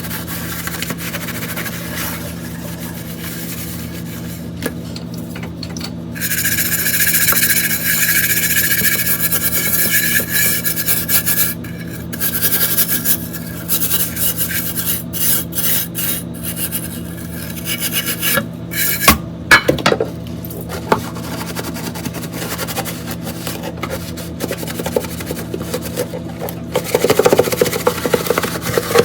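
Dishes being washed by hand in a kitchen sink: rubbing and scrubbing strokes, with a stretch of steady running water about six seconds in and a couple of sharp clinks around twenty seconds.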